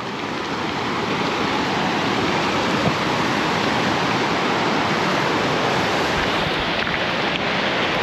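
Waterfall pouring: a steady, even rush of falling water.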